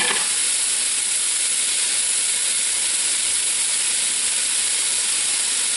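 Ground beef sizzling steadily as it browns in a stainless steel pot.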